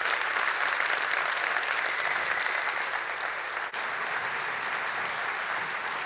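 Audience applause: many people clapping steadily at the close of a talk.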